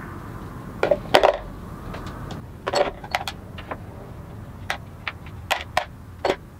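Small metal parts from a disassembled egg beater hand drill dropped one by one into a plastic container: about a dozen irregular, short clinks.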